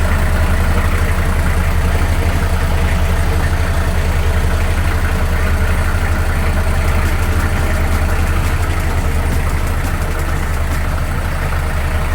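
Beta 60hp marine diesel engine running steadily, just after its injection pump rack was refitted and the fuel bled through.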